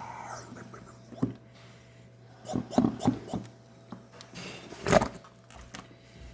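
Slime being squeezed and worked in the hands, giving irregular wet pops and squelching clicks, in a cluster a few seconds in and loudest about five seconds in.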